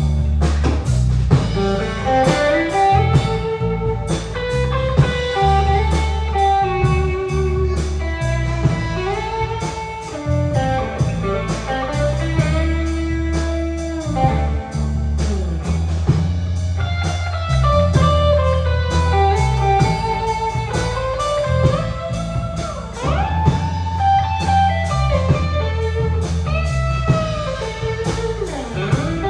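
Instrumental blues-rock music: electric guitar playing bending lead lines over bass and a drum kit beat.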